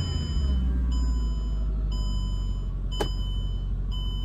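Mercedes E55 AMG's supercharged 5.4-litre M113K V8 idling just after start-up, its revs easing down in the first second. A car warning chime beeps about once a second over it, with a single click about three seconds in.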